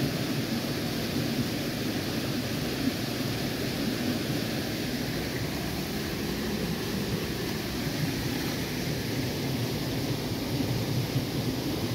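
Shallow stream rushing steadily over rocks and pebbles.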